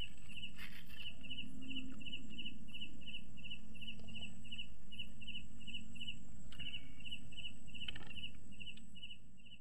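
Cricket chirping in an even, regular rhythm, about three short chirps a second, over a faint low hum; it fades out near the end.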